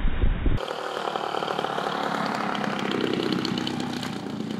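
A brief burst of wind buffeting the microphone on a speeding boat, then, after a cut, the engine of a radio-controlled aerobatic biplane droning steadily as the plane comes in low to land.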